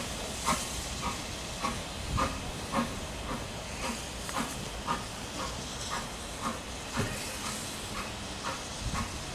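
Steam locomotive at work, its exhaust beating steadily about twice a second over a hiss of steam.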